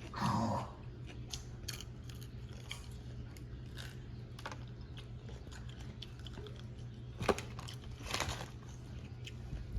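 Close chewing and crunching on crispy fried chicken: scattered small crackling clicks, with louder crunches about seven and eight seconds in, over a steady low hum.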